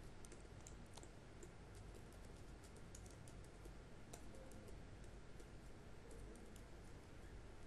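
Faint typing on a computer keyboard: an irregular run of light, quick key clicks.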